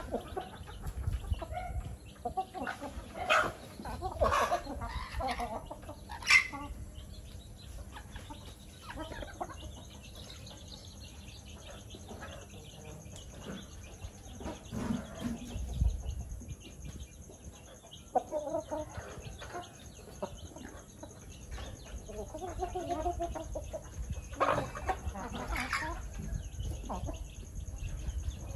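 Hens clucking on and off as they peck for food on the ground, in several short bouts. A single sharp click about six seconds in is the loudest sound, with a few low bumps scattered through.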